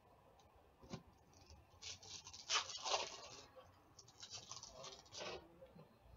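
Foil trading-card pack wrapper crinkling as it is torn open, and cards sliding against each other as they are handled. This comes in two bursts of rustling, with a sharp click about a second in.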